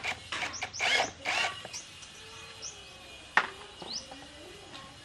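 Hands working on a motorbike's front fork and brake caliper: a few short scraping, rustling noises in the first second and a half, then a single sharp metal clink about three and a half seconds in. Faint bird chirps in the background.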